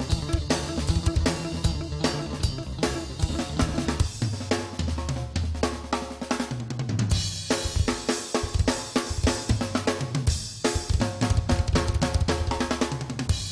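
Rock band playing: a drum kit drives a busy beat of snare, bass drum, hi-hat and cymbals, over sustained bass guitar notes and electric guitar.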